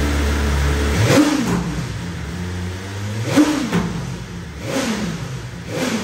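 BMW S1000RR inline-four engine on its stock exhaust, idling and blipped four times on the throttle, each rev rising and falling quickly in pitch.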